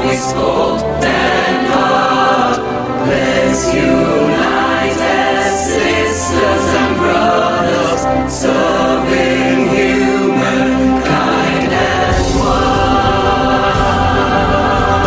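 A choir singing a song with sustained, held notes.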